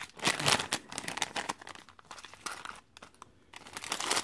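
Thin clear plastic zip bags of rings crinkling as they are handled, loudest in the first second, dying down in the middle and starting again near the end.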